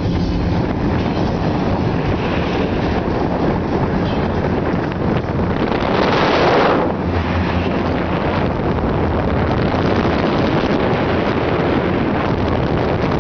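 Wind noise buffeting the microphone aboard a large speedboat running at speed, over the rush of water and the boat's engines. A louder rush of about a second comes around six seconds in.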